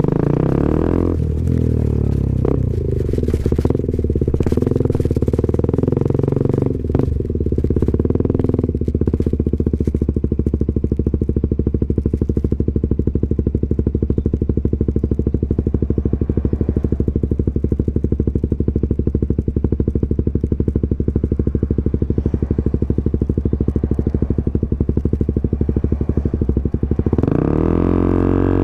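KTM Duke 125 single-cylinder four-stroke engine through a Scorpion exhaust with the dB killer removed. It is uneven with a few clicks for the first several seconds, then idles steadily, and the revs rise near the end.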